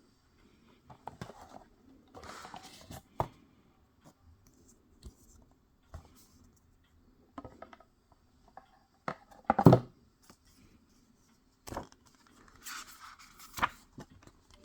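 Hands handling packaging and Blu-ray cases: intermittent rustling and scraping with sharp clicks and knocks, the loudest a thump about two-thirds of the way through.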